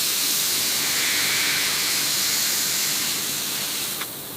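Steady loud hiss, strongest in the high range, that eases a little near the end and then cuts off abruptly.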